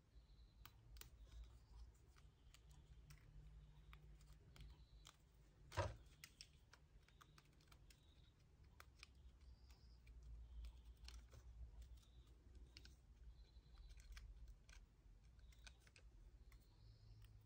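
Near silence with faint, scattered small clicks and ticks of paper being handled as the cut-out bits of a die-cut paper shape are poked free with a pick tool. There is one louder knock about six seconds in.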